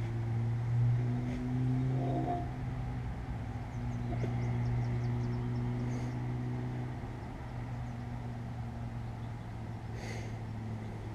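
A steady low machine hum with a few faint light clicks.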